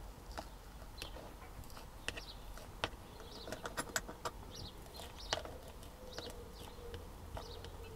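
Scattered sharp clicks and ticks of a plastic spudger tool prising a rain sensor away from the inside of a windscreen, working against its 3M adhesive pad. Birds chirp faintly in the background.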